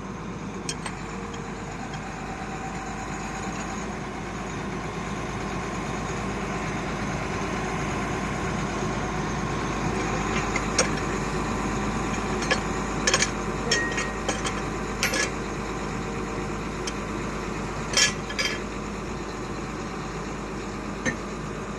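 Diamond core drilling rig's engine running steadily, with a scattering of sharp metallic clinks and clanks from steel drill rods and fittings about halfway through, the loudest near the end.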